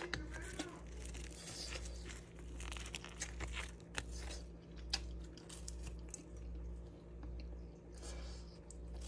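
Crisp, flaky layered flatbread being torn apart by hand, its browned layers giving many small crackles and crunches. A low hum swells and dips about once a second underneath.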